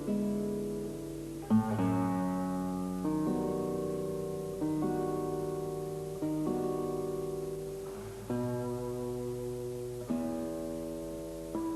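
Slow instrumental background music: ringing chords, each struck and left to fade, a new one about every one and a half to two seconds.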